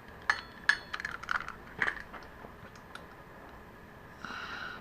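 Light metallic clicks and taps from a 6 mm Allen key working the fork pinch bolts on a motorcycle's front forks, scattered through the first two seconds and then fading off.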